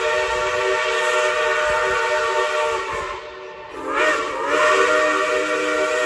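Steam locomotive's chime whistle blowing a long, loud chord of several steady notes. It breaks off a little past halfway and sounds again with a wavering start.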